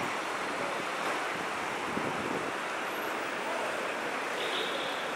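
Steady city-street traffic noise from passing cars, an even hiss with no single vehicle standing out. A faint high tone comes in near the end.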